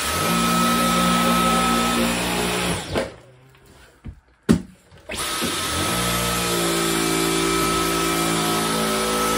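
Dyson V11 Absolute cordless stick vacuum running in auto mode with its main brush head on a rug: a steady motor hum with a high whine. About three seconds in it cuts out, there is a click, and it starts up again about two seconds later.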